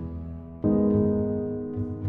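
Background music: sustained instrumental chords, with a new chord struck about half a second in and slowly fading.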